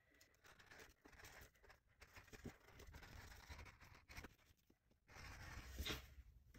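Faint sounds of jersey knit fabric being cut and handled on a cutting mat: soft rustling with scattered light clicks, a little louder near the end.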